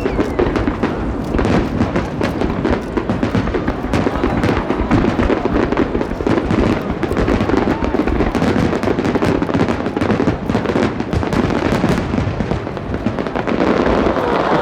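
Fireworks display going off in a dense, continuous barrage: many overlapping bangs and crackles with a low rumble under them.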